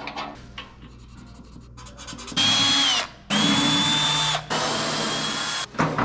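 Cordless drill driving a socket on the blower wheel's hub nut, run in three bursts of about half a second to a second each with a steady high whine. The pitch sags as the first burst stops. A few light clicks of handling come first.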